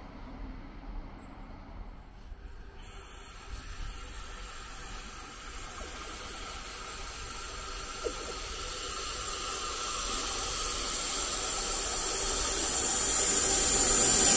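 An electric train approaching on the Brenner line: a hiss from the rails sets in about two seconds in and grows steadily louder as the train nears, over a faint low rumble.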